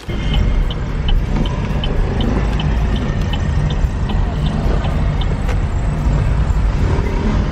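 Car driving, heard from inside the cabin: a steady low rumble of engine and road noise, with a light ticking about three times a second for the first five seconds.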